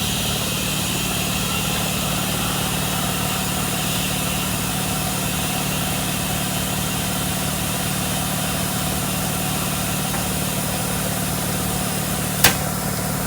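A machine running with a steady, even hum, and a single sharp click near the end.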